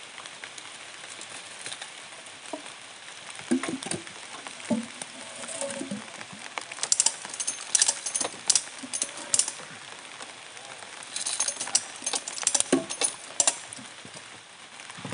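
Steady hiss of light drizzle, with knocks and sharp clacks as short cut log sections are heaved onto a log-hauling motorcycle's metal rear rack and knock against each other, in two busy spells in the middle and later part.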